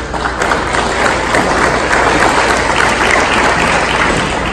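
Audience applauding: many hands clapping in a dense patter that builds over the first second or so and holds loud before easing near the end.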